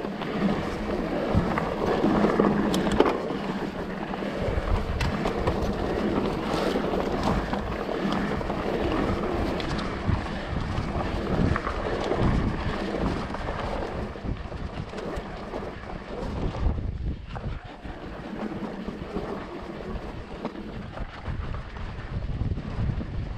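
Mountain bike being ridden over a rough trail: tyres rumbling and the bike rattling with many small knocks, while wind buffets the microphone.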